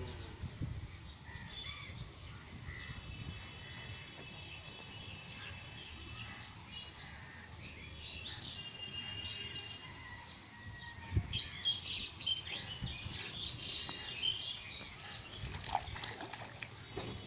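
Birds chirping and trilling around a pond. About eleven seconds in there is a low thump, after which a busier, irregular splashing joins the birdsong as a hooked fish thrashes at the water's surface.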